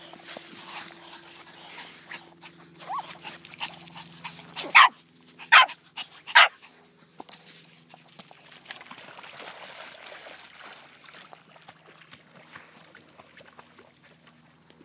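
Papillon dog barking: three sharp, high-pitched barks in quick succession about five seconds in, the loudest sounds here.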